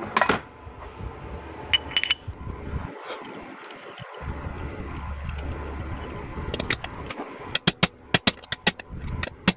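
A few metal clinks as a bushing driver is fitted to its handle, then near the end a quick run of light hammer taps, about five a second, on the driver, seating the new output shaft bushing in a GM 4L60E transmission's tail housing.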